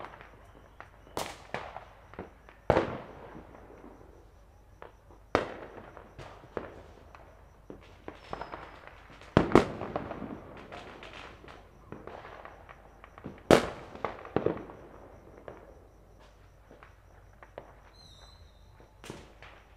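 Fireworks and firecrackers going off at irregular intervals. Sharp bangs with echoing tails, some near and some distant, the loudest about halfway and about two-thirds of the way through.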